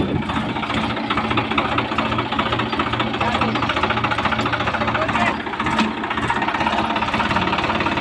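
Swaraj 735 XM tractor's three-cylinder diesel engine running steadily, a rapid even clatter, just after it was started by rolling it down a slope because its starter motor has burnt out.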